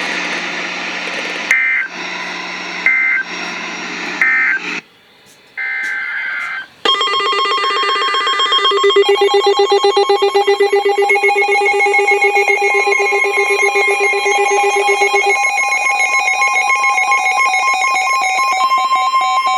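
Electronic emergency alert tones. First a hissing feed with three short high beeps, then, from about seven seconds in, many alert tones sound together in a fast pulsing warble. Near the end one steady tone grows loudest.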